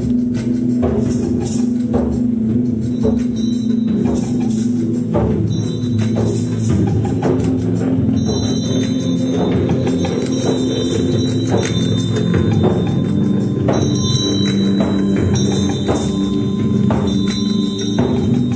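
Live sound-concert music: a steady low drone under repeated struck percussion, about one or two strokes a second, with chime-like ringing tones over the top.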